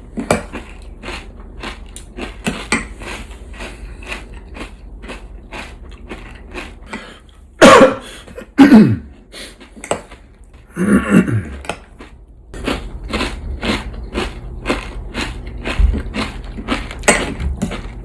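Eating noises: repeated short clicks of cutlery on a plate, with a man clearing his throat loudly about eight seconds in and again around eleven seconds.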